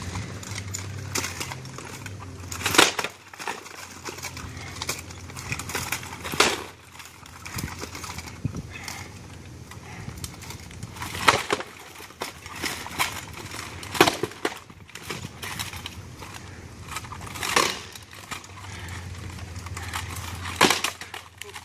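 Armoured sparring: weapons striking shields and armour in sharp knocks a few seconds apart, about six loud blows, with smaller knocks and clatter between them.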